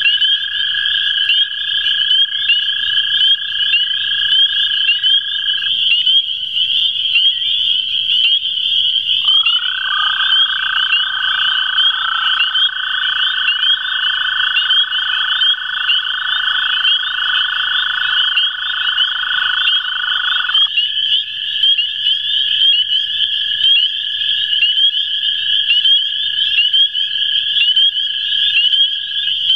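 Two male American toads giving their long, steady, musical mating trills, one after another and overlapping. One trill stops about six seconds in, another runs on almost to the end, and a louder, slightly lower trill lasts from about nine to twenty-one seconds. Behind them is a dense chorus of higher-pitched frog peeps.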